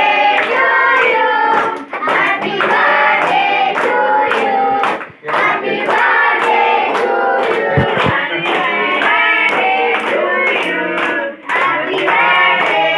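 A group of children and adults singing together, with steady rhythmic hand clapping at about two to three claps a second.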